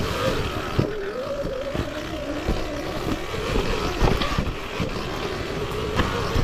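Sur Ron Ultra Bee electric dirt bike's motor whining as it rides, its pitch wavering up and down with the throttle, over frequent short knocks.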